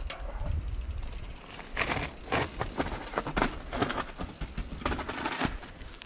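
A mountain bike rolling past on a dirt trail: tyres crunching over dirt and gravel and the bike rattling, in a run of sharp crackles and clatters lasting a few seconds that ends just before the end.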